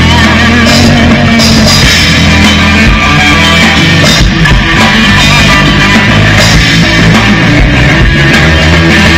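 Rock band playing loud through an outdoor PA during a soundcheck: electric guitars, bass and a drum kit.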